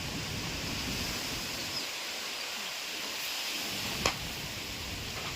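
Heavy rain and wind in a storm: a steady hiss, with a single sharp knock about four seconds in.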